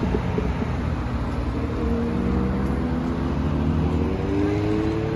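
Road traffic: motor vehicle engines running steadily over a low rumble, with engine tones rising in pitch during the second half.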